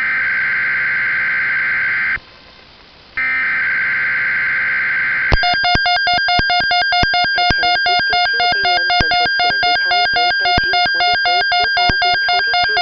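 Weather radio emergency alert: two bursts of the SAME digital header's screeching data tones, each about two seconds long with a one-second gap between them. Then a pulsing electronic attention tone, made of several pitches at once, sounds for about eight seconds.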